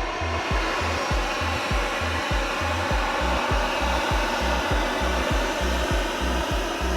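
Jet airliner engines roaring at high power, a steady loud rush, over background music with a steady beat and bass.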